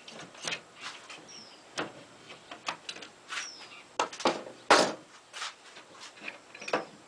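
Irregular knocks and clatter of the newly screwed wooden bed frame and its bar clamps being handled, with the loudest knocks about four to five seconds in. A few faint, short, high chirps sound between them.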